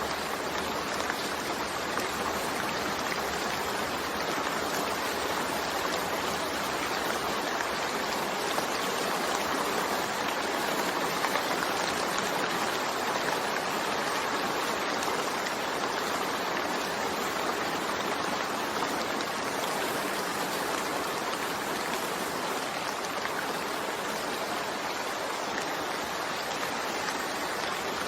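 Steady, even rain falling, with no thunder.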